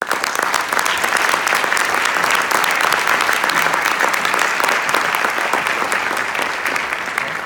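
Audience applauding: dense, sustained clapping that eases off near the end.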